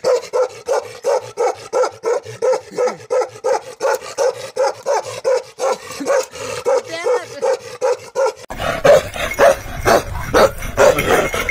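A dog barking rapidly and steadily, about three barks a second. About eight and a half seconds in, the sound cuts to another dog barking over a noisier background.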